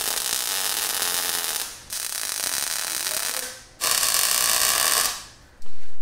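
Arc welding on steel: the steady crackling hiss of the welding arc, in three runs broken by short pauses. The last run fades out about a second before the end.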